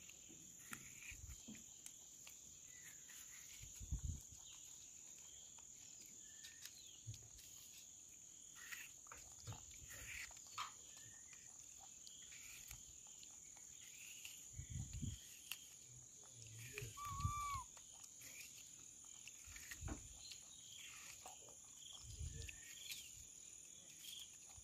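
Young bonnet macaque biting and chewing an apple: faint soft crunches and clicks with a few dull bumps, over a steady high insect drone.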